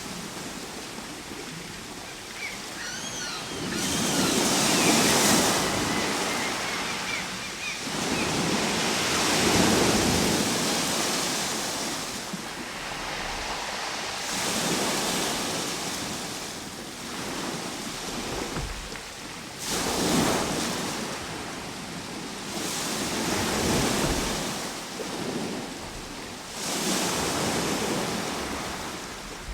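Ocean waves breaking and washing up the shore, rising and falling in surges about every five seconds.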